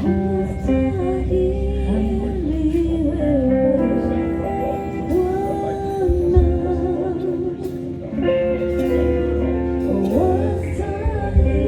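Church worship music: singing over held instrumental chords and a steady bass line.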